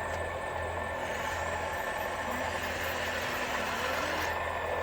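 Electric motor and gearbox of a 12 V RC truck running steadily, a continuous mechanical hum with a faint steady whine.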